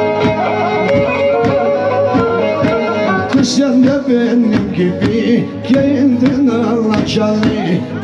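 Black Sea kemençe playing a fast folk tune with short, evenly repeated strokes, and a man's voice singing joins about three seconds in.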